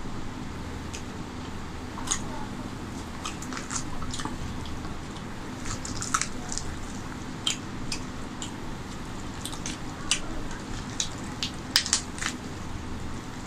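Wet, sticky squishing and small irregular clicks of a hand kneading basmati rice and chicken curry together on a steel plate, with the sharpest clicks a little before the end.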